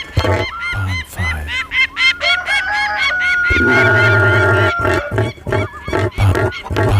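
Cartoon bird sound effects: a fast series of goose-like honks and squawks, with a held steady tone in places.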